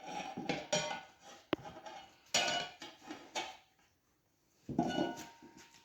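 Metal tire irons clinking and scraping against a dirt bike wheel rim while forcing a stiff mousse-filled tire's bead on, in three bouts of clatter with a sharp click about a second and a half in.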